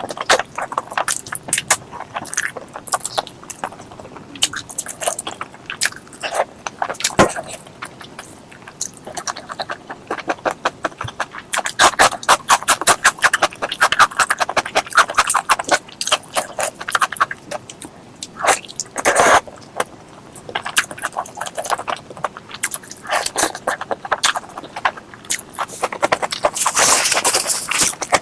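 Close-miked eating of pork leg curry with rice: wet chewing and lip-smacking clicks, with a dense run of rapid mouth clicks in the middle and a longer hissy sound near the end.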